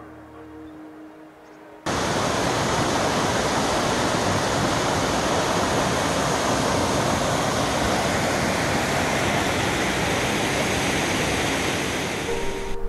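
Waterfall and mountain creek cascading over boulders: a steady, loud rush of water that starts abruptly about two seconds in and cuts off near the end.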